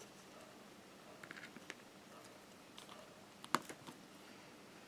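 Faint, scattered small clicks and taps, with one sharper click about three and a half seconds in: a diamond painting pen picking up drills from a tray and tapping them onto the canvas.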